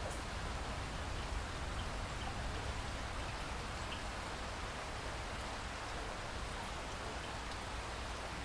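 Steady rain falling, an even hiss with scattered individual drop ticks and a low rumble underneath.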